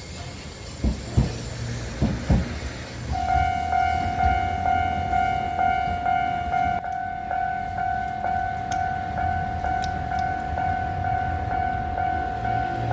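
A few heavy clunks of tram wheels over the crossing's rail joints. About three seconds in, the level-crossing warning bell starts its electronic kan-kan and keeps ringing as a steady, repeating tone.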